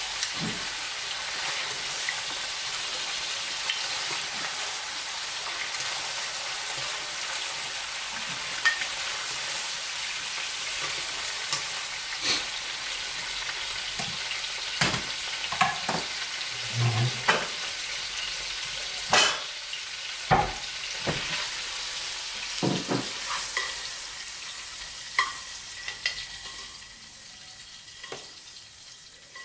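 Ribeye steak pieces sizzling in a hot wok, with scattered sharp clicks of metal tongs against the wok and a glass bowl as pieces are lifted out. The sizzle fades near the end as the wok is lifted off the heat and tipped over the bowl.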